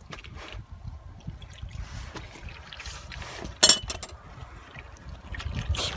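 Wind rumbling on the microphone over a trickle of engine oil draining, with one sharp metallic clank about three and a half seconds in.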